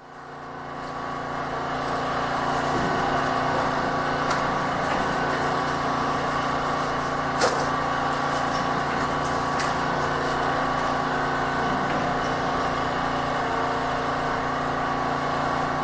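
A running machine giving a steady hum with several fixed tones. It fades in over the first couple of seconds, with a sharp click about seven seconds in.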